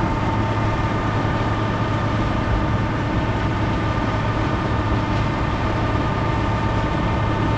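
Tractor engine running at a steady speed, driving a manure pit agitator that stirs up the liquid manure.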